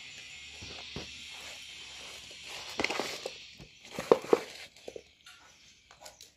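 A hand tossing and mixing spice-coated sun-dried radish strips in a steel bowl: rustling, with a few sharp knocks of the pieces and fingers against the metal, loudest about four seconds in.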